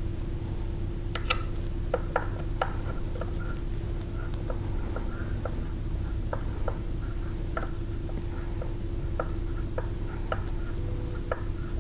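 Shoulder bolt being turned in with a T-handle driver: light, irregular metal clicks about once or twice a second as the tool works the bolt, over a steady background hum.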